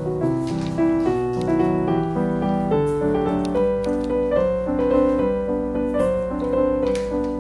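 Background piano music, a slow melody over held chords.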